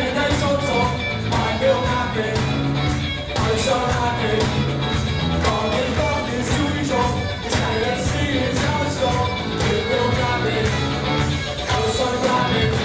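Live rock band playing a song: two singers' voices over electric guitars and drums with a steady beat.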